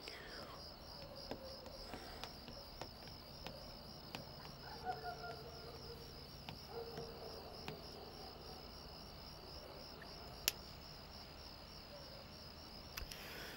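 Crickets chirping in a steady, evenly pulsing trill, with faint scattered ticks and one sharp click about ten seconds in.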